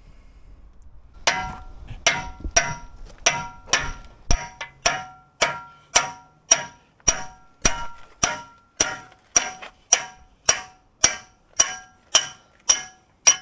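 Hammer blows on steel, driving out a pivot pin: about two ringing metallic strikes a second, beginning about a second in and keeping an even beat.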